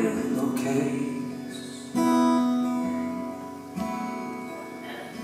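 Acoustic guitar played solo: three chords strummed about two seconds apart, each left to ring and fade.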